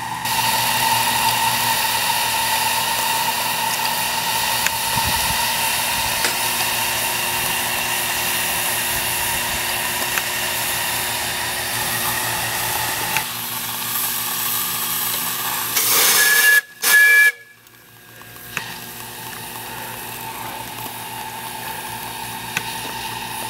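Live steam scale model of ET&WNC #12 venting steam in a steady loud hiss. About 16 seconds in, a louder burst carries two brief whistle toots, then the sound drops away.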